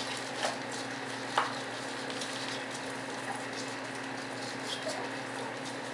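Puppies' paws pattering and rustling on newspaper spread over the floor, with a few small clicks in the first second and a half over a steady hiss.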